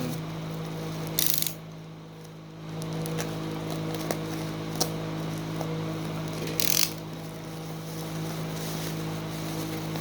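Mouse packaging being torn open by hand: two short rips, one about a second in and one near seven seconds, with small clicks and handling noises between them.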